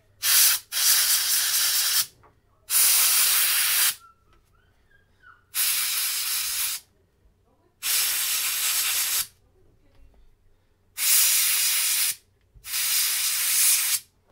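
Canned compressed-air duster blasting through its thin extension straw in seven hissing bursts, most about a second long, drying freshly cleaned circuit boards so the cleaning solvent evaporates.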